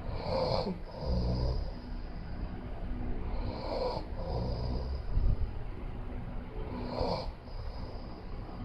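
A man snoring loudly. Each breath is a low rasping rumble followed by a short, harsher burst, repeating about every three and a half seconds.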